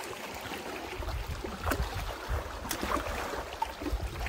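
Wind buffeting the microphone as a low rumble that picks up about a second in, over small waves lapping on a rocky shore.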